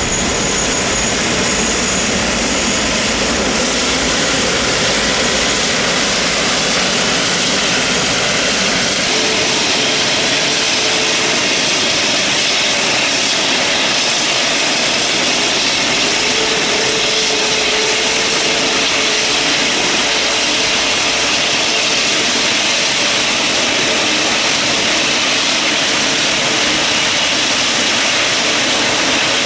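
An Airbus A380's Rolls-Royce Trent 900 turbofan jet engines running at taxi power as the aircraft rolls slowly past close by: a steady jet rush with a thin high whine that fades in the first few seconds and a low hum that comes in about nine seconds in.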